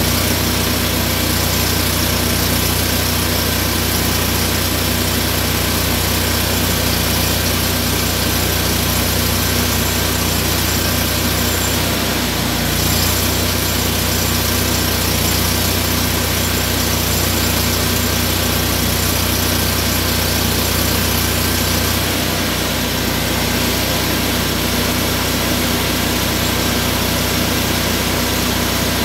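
An engine running steadily at an even speed, a constant hum with slight shifts in its sound about 13 and 22 seconds in.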